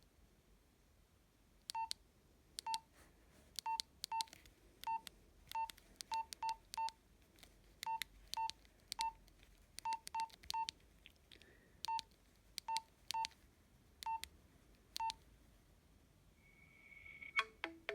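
Nokia 112 mobile phone keypad beeps: about twenty short, identical key-press tones at an irregular pace, as the buttons are pressed one after another. Near the end a louder, quick run of different tones starts.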